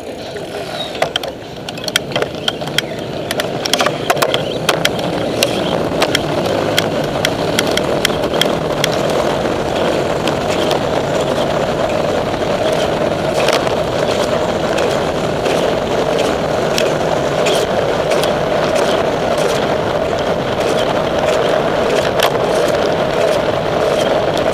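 Bicycle rolling along a road with wind buffeting the microphone: a steady rushing noise that grows louder over the first few seconds as the bike gets up to speed, with scattered clicks and rattles, most of them in the first several seconds.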